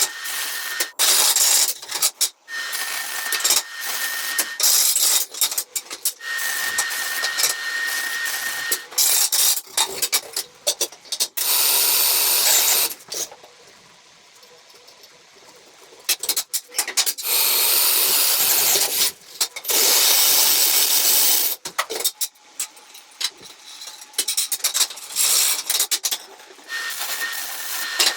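Edited run of welding and metalworking shop noise: hissing and rasping bursts, chopped by frequent abrupt cuts, with a thin steady whine at times and a few quieter seconds about halfway through.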